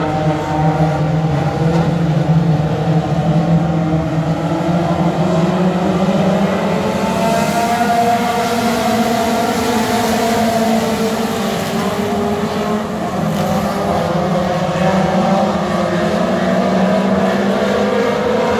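A pack of four-cylinder Pure Pony dirt-track race cars running laps around the clay oval, several engine notes overlapping and slowly shifting in pitch. The sound grows brighter for a few seconds in the middle as cars pass closer.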